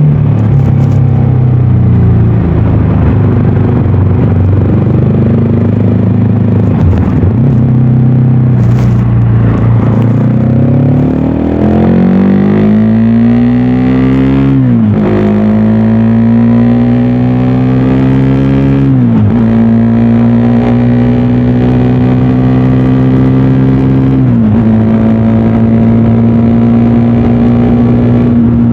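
VOGE 300DS single-cylinder engine and exhaust pulling hard under acceleration. The revs climb and drop sharply three times as the rider shifts up through the gears, then hold steady at cruising speed near the end.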